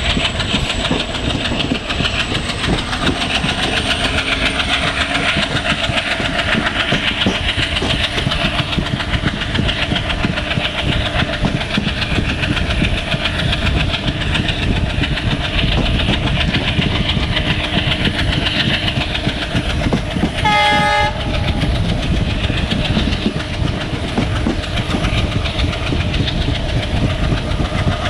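WDM-3A diesel locomotive and its train running, a steady loud rumble and rattle of engine and wheels on rail. About three-quarters of the way through, the locomotive's horn gives one short blast of under a second.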